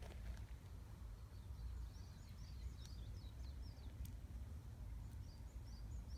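Outdoor ambience with a low steady rumble, over which a small bird chirps in quick runs of short, high calls, twice.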